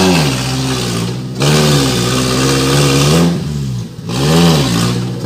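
Suzuki Jimny 4x4's engine revving up and down in repeated surges as the lifted, mud-tyred truck crawls up a steep muddy bank under load.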